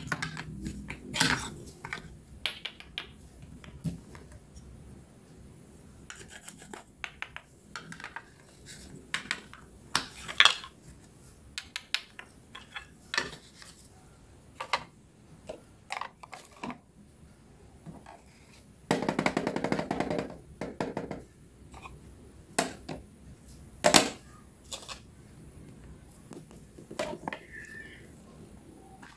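Toy kitchen play-food pieces and a toy knife being handled: scattered light clicks and knocks as toy fruit is cut apart and pieces are picked up and set down, with one denser stretch of noise lasting about two seconds a little past the middle.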